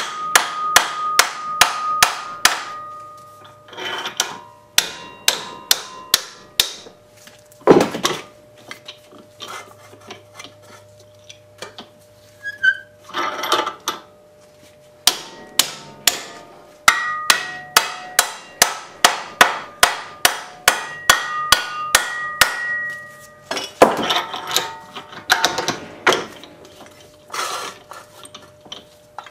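Ball-peen hammer striking sheet metal clamped in a heavy bench vise, beating it over into a 90-degree bend. The metal rings with each blow; the blows come in quick runs of about four a second, with sparser stretches between and a few heavier blows about eight seconds in and again near the end.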